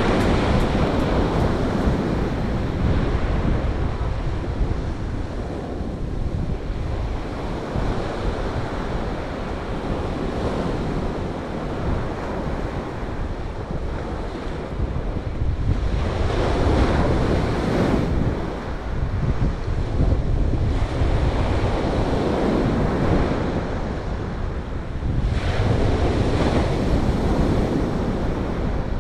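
Sea surf breaking on a pebble beach, a wave crashing and washing up over the stones every several seconds. Wind rumbles on the microphone underneath.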